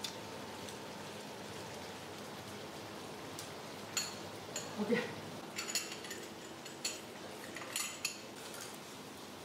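Chopsticks, a spoon and porcelain bowls clinking at a dinner table, several sharp clicks in the second half, over a steady hiss of meat sizzling in a wok on a tabletop induction cooker.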